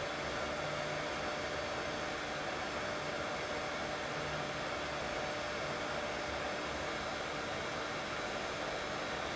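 Steady, unchanging white noise with a faint hum running through it, played as a baby sleep sound.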